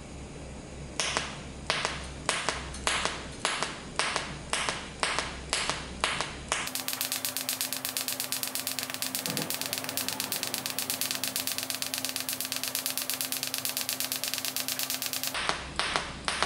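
TIG welding arc on thin steel angle. First a run of sharp clicks, about two a second, as the arc is struck again and again for tacks. Then about nine seconds of steady fast buzzing while the seam is welded, and clicks again near the end.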